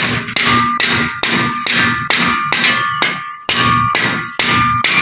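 Hammer blows on metal in a steady rhythm, about two to three a second, each ringing briefly.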